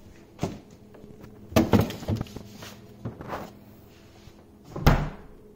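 Knocks and rustles of a covered bowl of dough being put back onto a refrigerator shelf, then a louder, heavier thump near the end as the fridge door shuts.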